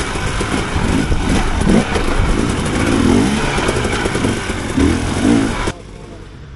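A dirt bike engine revving up and down as it is ridden, over a loud rushing noise. It cuts off abruptly about a second before the end, leaving a much quieter background.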